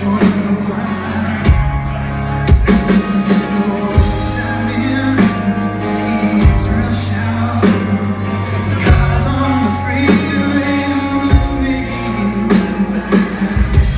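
Live rock band playing: acoustic and electric guitars, electric bass and drum kit with a steady beat, and a man singing.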